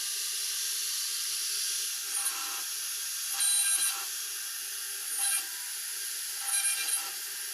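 CNC router spindle cutting a lasani (laminated board) sheet: a steady high hiss, broken by four short, louder bursts of whine as the bit bites.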